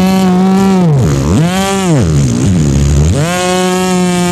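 A beatboxer's vocal imitation of a wood-cutting machine: a loud buzzing hum held on one pitch, twice dropping away and swooping back up before holding steady again, like a saw's motor bogging and revving as it cuts.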